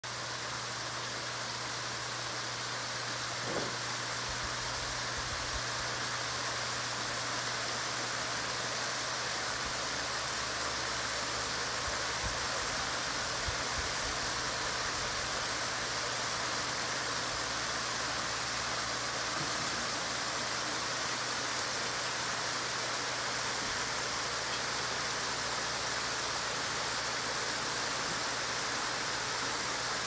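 Water splashing steadily down a tiered rock waterfall, spilling over several boulder ledges into a bed of pebbles.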